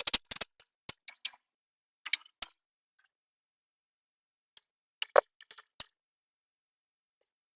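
Sharp plastic clicks and snaps as a replacement door flapper is fitted onto a Dometic RV fridge door. They come in short clusters: several at the start, a few more over the next two seconds, then a silent gap before another cluster about five seconds in.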